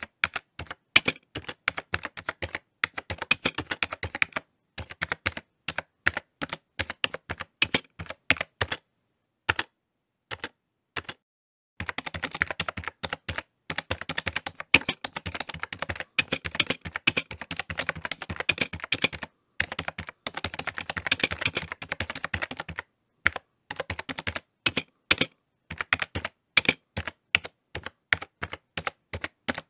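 Rapid, irregular clicking in dense runs, with a pause of a few seconds about a third of the way in and brief breaks later.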